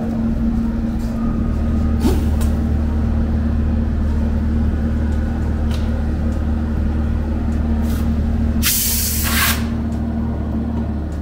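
Steady hum of shop compressed-air equipment, most likely the air compressor running, with a short blast of compressed-air hiss about nine seconds in.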